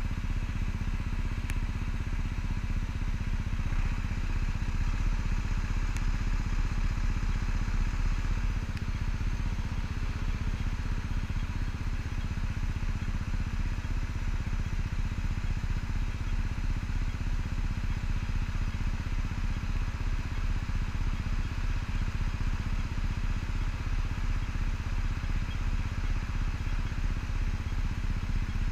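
Yamaha Cygnus 125 cc single-cylinder scooter idling at a standstill, together with a double-decker bus's engine idling alongside. A steady, unchanging running sound.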